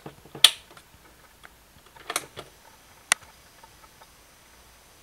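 Sharp plastic clicks and clunks from a hand working the controls of a Fostex X-18 four-track cassette recorder: a loud click about half a second in, a few more around two seconds, and one sharp click about three seconds in, over a faint steady hiss.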